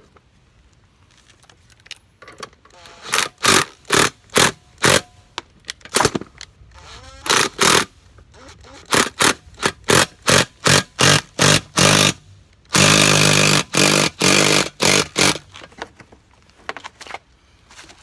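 A handheld power tool spinning a scissor jack's screw through a deep socket, run in short repeated bursts with one longer steady run, as the jack is forced up to break a lawn tractor tire's bead off the rim.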